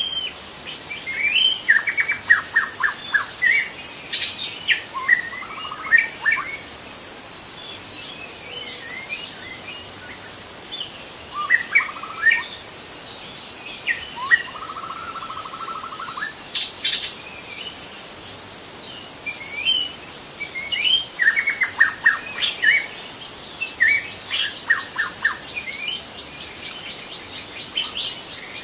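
White-rumped shama singing in bursts of varied whistles, quick chattering notes and a short trill, with pauses of a few seconds between phrases, over a steady high-pitched insect drone.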